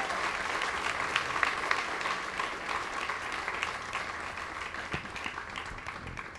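Crowd applauding, the clapping fading away gradually toward the end.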